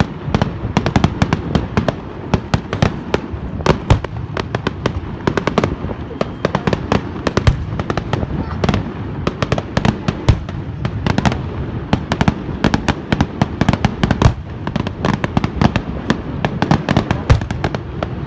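Fireworks display going off in rapid succession: many sharp bangs and crackles a second, one after another, over a steady low rumble.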